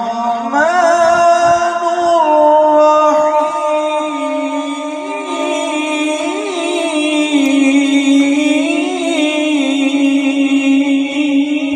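A man reciting the Quran in the melodic tajweed style into a microphone, drawing out a long, sustained phrase with wavering ornaments on the held notes.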